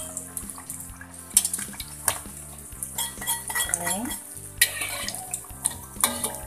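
A metal cooking utensil clinks and scrapes against a frying pan, several sharp knocks about a second apart, as the fried martabak is lifted out of hot oil. The oil sizzles with a steady high hiss underneath.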